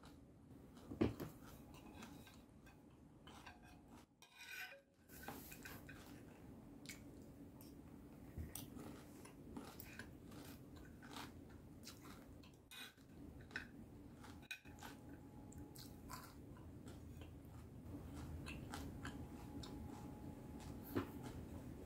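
Faint close-up chewing of a crispy fried pork and fish salad, with scattered small clicks of a spoon and fork on a ceramic plate; the loudest sound is a sharp clink of cutlery on the plate about a second in.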